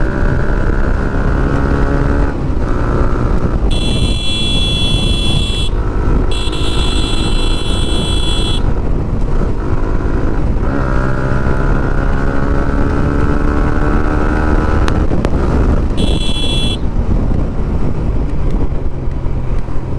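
Yamaha MT-15's single-cylinder engine, its exhaust fitted with a dB killer, revving up and dropping back through gear changes while riding, with wind on the microphone. A horn sounds in two long blasts about four to eight seconds in, and once briefly later.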